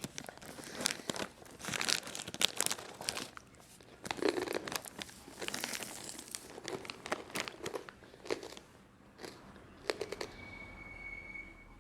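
Plastic packaging being handled, crinkling and crackling in irregular bursts, with a brief pause about a third of the way in. A short, faint high tone sounds near the end.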